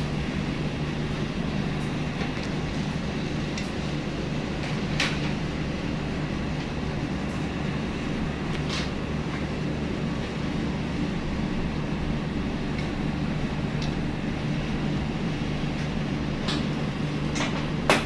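A steady low machine hum runs without a break, with a few light clicks and taps scattered through it, including one about five seconds in and a cluster near the end.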